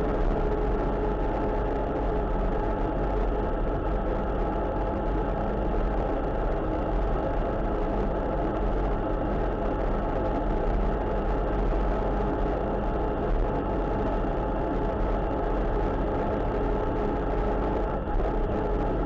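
Vehicle engine and road noise at a steady cruising speed, heard from inside a moving vehicle: a constant low rumble with a steady engine note that does not change.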